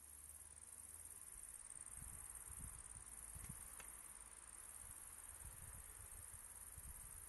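Near silence: quiet outdoor ambience with a steady faint high-pitched hiss and soft low rumbles, like light wind on the microphone.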